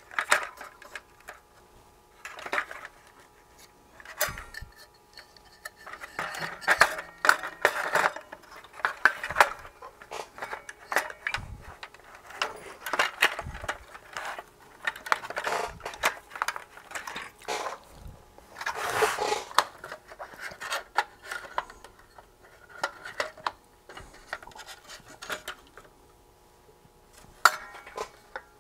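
Hands handling the parts of a Sony TFM-7350W portable radio during reassembly: irregular clicks, knocks and short scrapes of plastic and metal parts.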